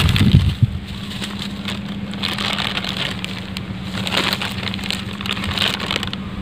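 Clear plastic bag crinkling and rustling as it is pulled out of loose soil by hand, with soft handling thumps and soil scraping in the first second. A steady low hum runs underneath.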